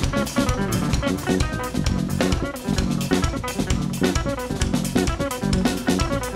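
Live jazz-rock trio music: an electric guitar playing over a busy drum kit, with bass drum, snare and cymbal strikes packed close together.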